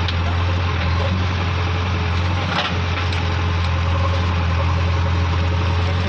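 JCB 3DX backhoe loader's diesel engine running steadily, with two brief knocks, one at the start and one about two and a half seconds in.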